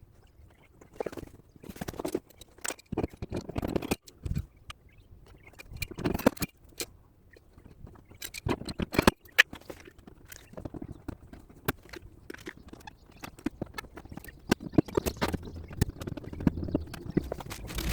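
Irregular light clicks, knocks and scrapes of hand tools and loose parts being handled while dismantling car body trim, with a few louder knocks and scraping spells.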